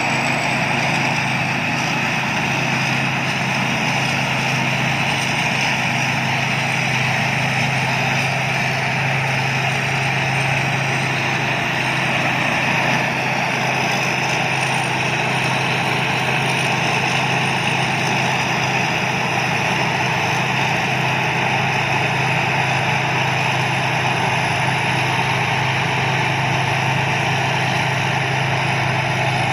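Thai Seng Yont rice combine harvester's diesel engine and machinery running steadily at a constant pitch.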